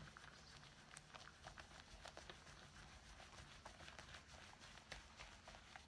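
Faint, irregular wet clicks and crackles of soapy merino-silk wool being rubbed by hand as it is wet-felted.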